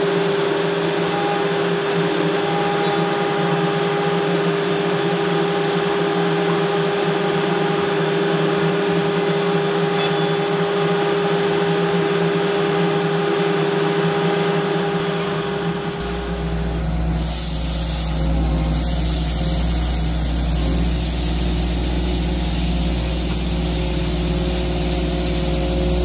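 A concrete slipform paver running with a steady machinery hum and a held tone. About two-thirds of the way through, the sound changes abruptly to a deeper, heavier machinery rumble.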